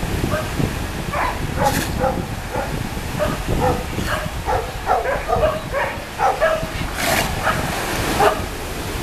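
Dogs and sea lions barking, many short overlapping barks and yips over and over, over the constant rush of breaking surf.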